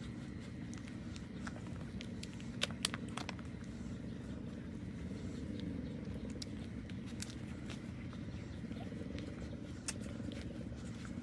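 Newborn puppies nursing: small sharp suckling clicks, a quick cluster a few seconds in and another near the end, over a steady low background rumble.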